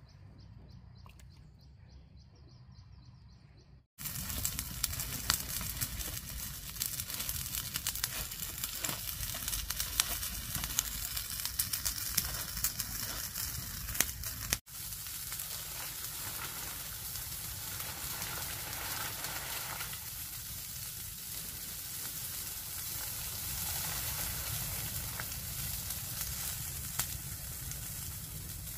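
A pile of dry leaves and bamboo debris burning, crackling and popping with a steady hiss. It starts after about four quiet seconds. The popping is densest at first and settles into a steadier crackle after about fourteen seconds.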